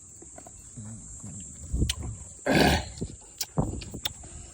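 A baboon gives one short, harsh grunt about halfway through, with a few sharp clicks before and after it.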